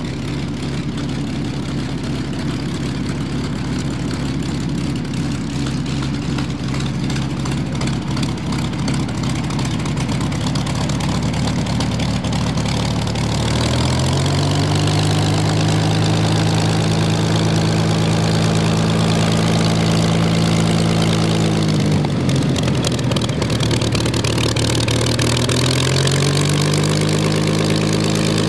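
Yakovlev Yak-3 fighter's piston engine running as the aircraft taxis. Its pitch rises about halfway through and holds steady, drops briefly, then rises again near the end.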